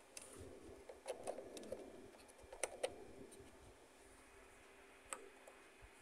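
Light clicks and taps of a DDR2 laptop memory module being handled and pushed into its slot, a few separate clicks with the sharpest near the middle and another about five seconds in.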